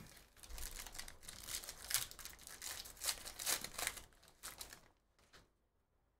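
Foil wrappers of 2023/24 Panini Donruss Basketball hobby packs crinkling and tearing as packs are ripped open. A dense run of rustling and ripping dies away about five seconds in.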